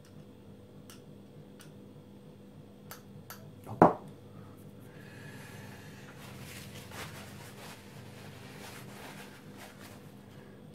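A few light clicks from a pump oil can oiling the cone bearings of a watchmaker's lathe headstock. A single sharp knock just before four seconds in, the loudest sound, as the metal oil can is set down on the table. After that comes soft rubbing and handling as the spindle and pulley are turned by hand.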